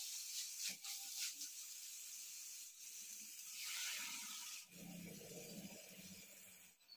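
Vegetables sizzling in a kadai while a metal spatula scrapes and clicks against the pan. Later, thick spice paste is scraped out of a bowl into it.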